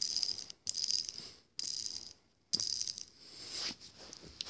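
Homemade Lego fidget spinner whirring and rattling on its Lego axle as it spins, plastic on plastic, in a few short bursts that die down near the end.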